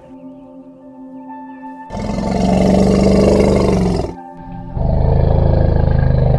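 A large animal gives two long, low calls, each about two seconds, over steady background music.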